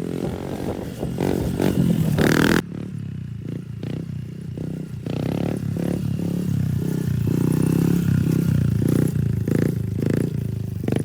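2019 Honda CRF110 mini dirt bike's fuel-injected single-cylinder four-stroke engine, through a Pro Circuit T-6 exhaust, being ridden. It revs up over the first couple of seconds and drops off suddenly, then builds again for several seconds and eases off near the end.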